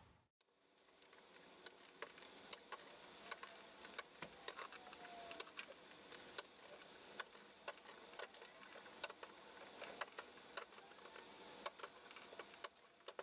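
Diagonal cutters snipping the excess wire leads of freshly soldered diodes off a circuit board: an irregular run of small, sharp clicks, about two or three a second.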